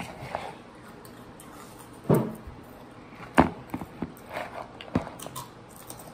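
Handling knocks of bowls and hands close to the microphone: three sharp bumps about a second and a half apart, with smaller clicks and faint rustling between.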